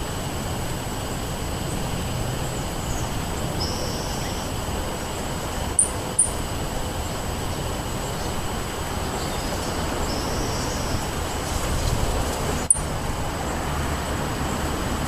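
Steady wind rushing over the microphone, with a few short, high-pitched bird chirps: two close together near the middle and one more later.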